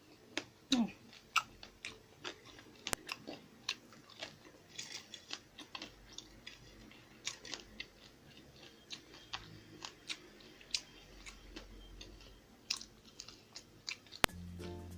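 A person chewing fried pork fat and rice, with many short wet clicks and bites of eating. Background music comes in near the end.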